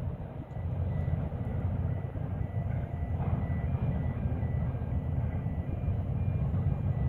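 Steady low rumble of distant container-terminal and ship machinery, with a faint high beeping that comes and goes.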